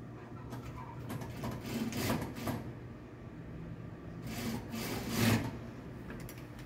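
Fabric pieces being slid and smoothed by hand across a sewing table, rustling in two sweeps about two and five seconds in, over a low steady hum.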